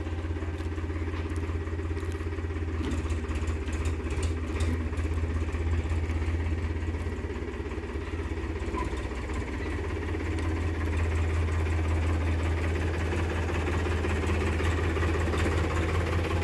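Powertrac Euro 50 tractor's three-cylinder diesel engine running steadily at low speed while pulling a loaded trailer, growing a little louder about two-thirds of the way through as it approaches.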